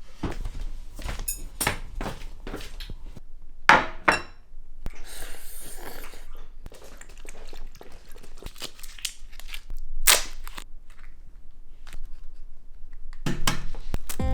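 A run of irregular sharp taps and knocks, with a brief scraping rustle about five seconds in.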